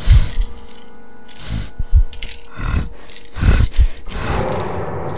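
Cartoon sound effects: a handful of sharp low thuds, irregularly spaced, with metallic clinking and jangling between them.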